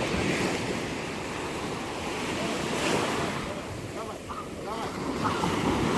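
Sea surf washing in, a steady noise that swells near the start and again near the end, with wind on the microphone.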